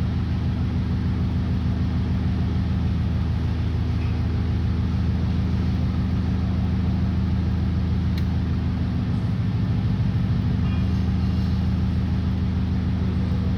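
Steady low mechanical hum, even in level throughout, from running machinery.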